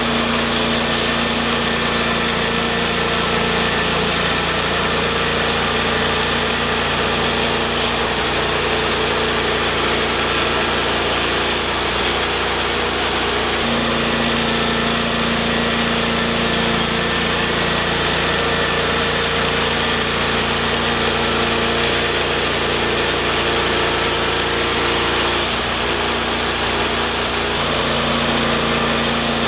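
TimberKing 1220 portable bandsaw mill running steadily, its engine and band blade turning as the sawhead works through a mesquite log, with small shifts in pitch now and then.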